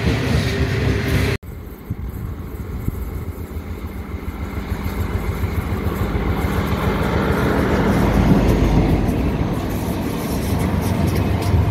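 Loaded coal hopper wagons rolling past, cut off abruptly about a second in. Then an XPT diesel passenger train approaches and passes: its power car's engine and wheel noise grow steadily louder, then the carriages roll by.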